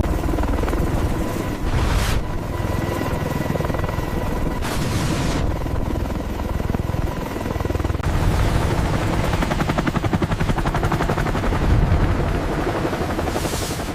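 Helicopter rotors and engines running as a dense, steady rumble, with a few brief whooshing sweeps. A rapid pulsing beat sets in about eight seconds in.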